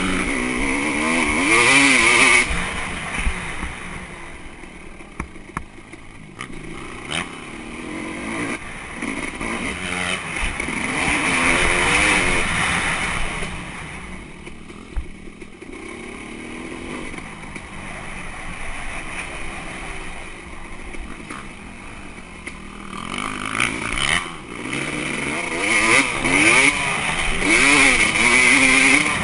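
Dirt bike engine revving up and down through the gears as it rides a motocross track, picked up by an on-board camera with wind buffeting the microphone. It is loudest near the start, about twelve seconds in and over the last few seconds, and eases off in between.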